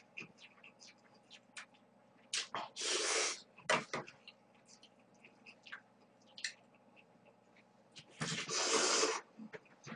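A person slurping noodles: two long, loud sucks, about three seconds in and again near the end, with short wet smacks of chewing in between.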